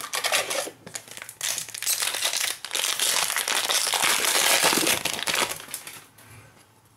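A Panini Prizm trading-card pack's foil wrapper being opened and crinkled by hand, a dense crackly rustle that stops about a second before the end.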